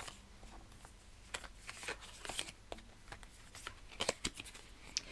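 Cartomancy cards being picked out of a spread deck on a cloth-covered table: faint scattered ticks and rustles of card stock as fingers slide and pull single cards, growing more frequent in the second half.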